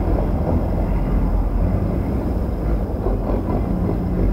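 Copa Truck racing trucks' diesel engines running as a steady low rumble on a wet track.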